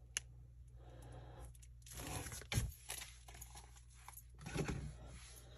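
Slime squeezed out of a plastic piping bag onto a clay cupcake, heard as a few short noisy bursts, the loudest about two and a half seconds in, with a sharp click at the start.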